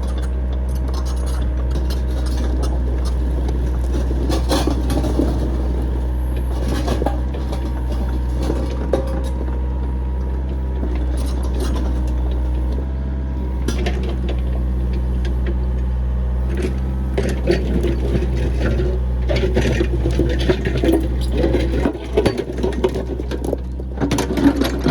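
Backhoe engine running steadily, with scattered metallic clanks and scraping that come thicker and louder in the last several seconds.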